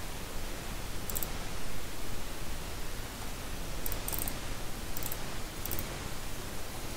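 Steady microphone hiss with about five short, sharp computer mouse clicks scattered through it, two of them close together in the middle.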